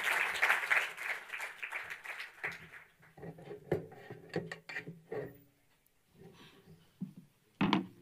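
Audience applause, dying away over the first two to three seconds. Faint voices follow, and two sharp knocks come near the end.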